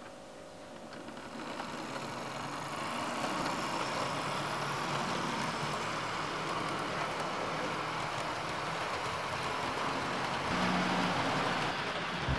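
Lima Class 52 Western model locomotive running along the track with its coaches: a steady whirr and rattle of the small motor and wheels on the rails that grows louder over the first few seconds as the train comes closer. A lower hum joins about ten seconds in.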